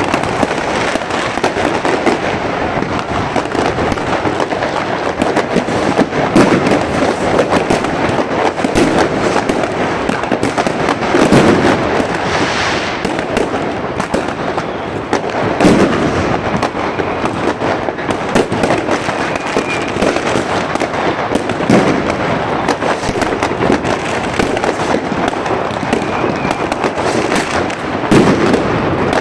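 New Year's Eve fireworks and firecrackers going off all around in a dense, continuous crackle of bangs. Louder, deeper booms come every four to six seconds.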